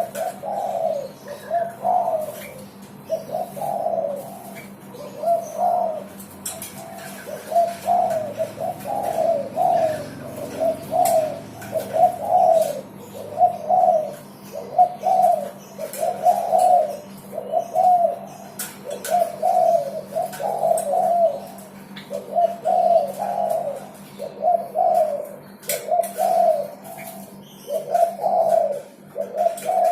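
Derkuku dove cooing persistently, one coo phrase after another about once a second, over a faint steady hum.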